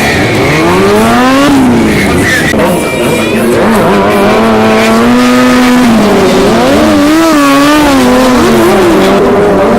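A stunt motorcycle's engine revving hard. The pitch climbs sharply and falls back, is held high and steady for a couple of seconds, then wavers up and down before settling.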